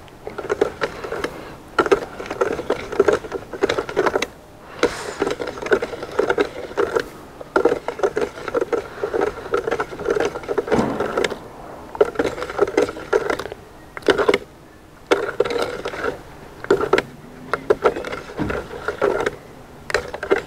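Wooden spoon stirring milk briskly in a metal bowl, scraping and knocking against the metal in quick repeated strokes, with a few brief pauses.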